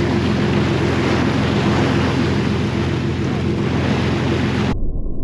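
Sportfishing boat's engines running steadily under way, with wind on the microphone and rushing water. Near the end it cuts abruptly to a muffled low rumble with no high end, as heard underwater.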